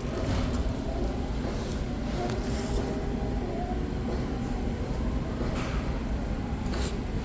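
Shop-floor ambience inside a store: a steady low rumble with a few light clicks.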